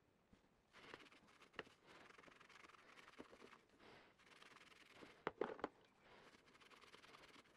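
Sponge's green scouring pad scrubbing the metal handles of an old can opener, a faint rasping scrub. A few sharp clicks of the metal come about a second and a half in and again, loudest, past five seconds in.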